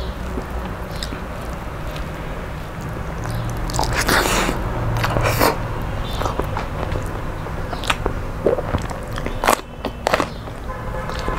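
Close-up mouth sounds of eating rice and curry: chewing and smacking, with sharp crunchy bites, the crunchiest near the end as she bites into a raw green chili. A low steady hum runs underneath.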